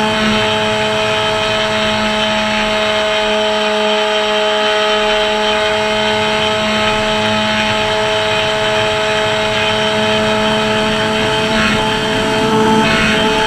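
An RC flying wing's motor and propeller running at a steady pitch, picked up by a camera riding on the plane, with wind rushing over the microphone.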